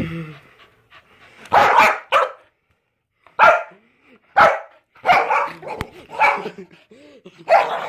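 A dog barking repeatedly, single short barks roughly a second apart.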